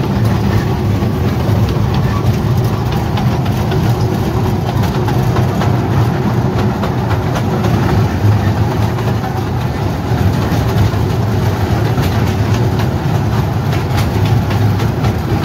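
Engine of a small zoo tourist train running steadily as it carries riders along, heard from an open carriage: a constant low hum with faint rattles over it.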